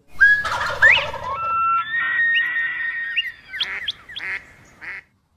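Animal calls: high whistled tones with rising glides, some held steady for about a second, followed by a few short, sharp calls. The calls stop about five seconds in.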